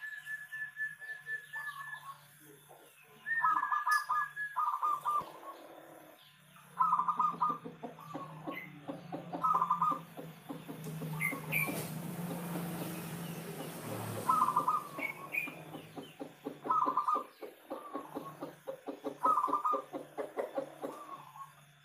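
Zebra dove (perkutut) cooing: short phrases of quick staccato coos repeated every couple of seconds, over a steady low hum.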